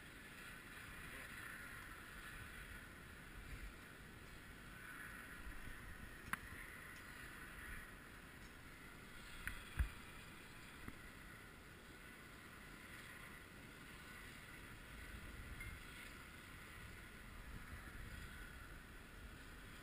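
Faint outdoor hiss with wind rumbling on the microphone, broken by a light click about six seconds in and a sharp knock nearer ten seconds in.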